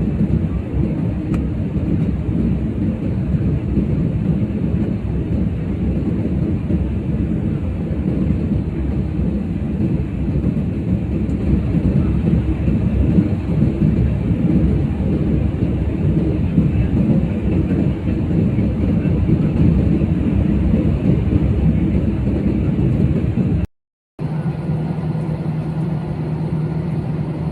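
Steady low rumble of an airliner cabin, engines and airflow running evenly. It breaks off suddenly near the end, then a steady hum with a low tone resumes.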